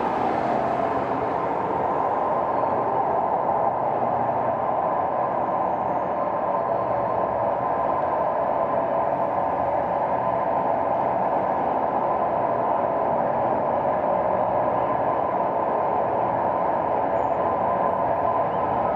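City traffic ambience: a steady, dense hum of vehicle traffic. A gliding tone falls away in the first second.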